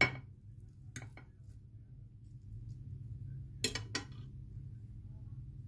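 Metal fork clinking against a ceramic plate while pulling apart tender baked turkey meat: a sharp clink at the start, two lighter ones about a second in, and two more near the end, over a steady low hum.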